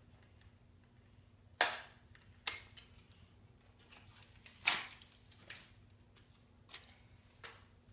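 Sharp clicks and snaps of a small plastic Shopkins basket package being handled, about six of them spread out, the loudest about a second and a half in and again just past the middle.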